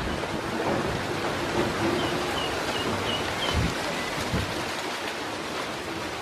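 Ducklings dabbling and splashing at feed in a shallow basin of water, a steady wet patter, with a quick run of about five faint high peeps about two seconds in and two dull thumps a little after the middle.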